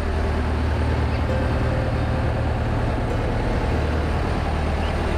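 Fishing boat's engine running steadily under way, a low even drone, with the wash of the wake rushing alongside.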